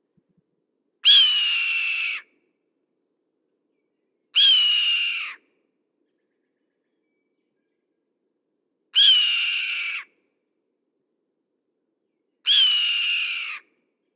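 Red-tailed hawk screaming four times, each call a hoarse, raspy scream about a second long that starts loud and slides down slightly in pitch, with pauses of a few seconds between calls.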